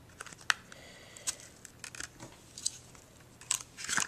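Scattered light clicks and paper rustles of cardstock being handled while a Crop-A-Dile hole punch is set in place, with a denser run of clicks near the end.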